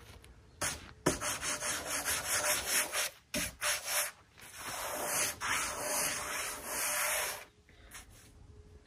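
A freshly sawn American chestnut slab being slid off the log on a bandsaw mill, wood scraping on wood. It comes as a run of short scrapes and then one longer steady scrape, stopping about seven seconds in.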